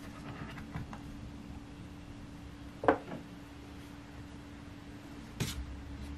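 Lenovo Slim 7 Pro X laptop being opened and handled on a desk: a few faint clicks, then a single sharp knock about three seconds in and a softer one near the end.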